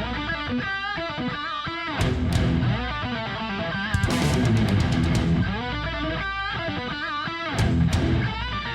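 Rock music led by electric guitar, with a wavering lead melody over a heavy low part and drum hits.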